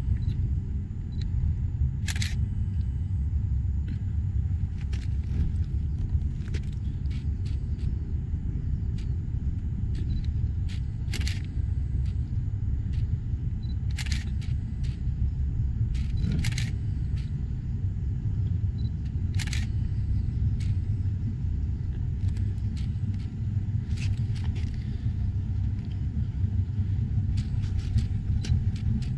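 Twin MerCruiser 4.3 V6 sterndrive engines of a Sea Ray 280 Sundancer running at idle as the boat manoeuvres, a steady low rumble. Sharp clicks come scattered through it, the brightest about 2, 11, 14, 16 and 19 seconds in.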